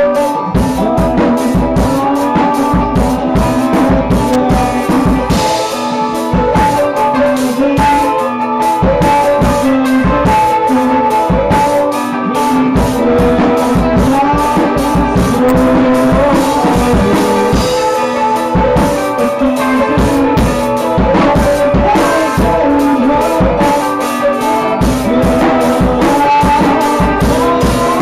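A rock band playing live: a drum kit keeping a busy beat with cymbals, under electric guitars carrying sustained melodic lines.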